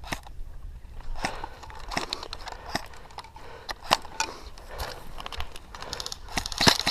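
Airsoft guns firing: scattered sharp pops, then a quicker string of shots near the end, several a second.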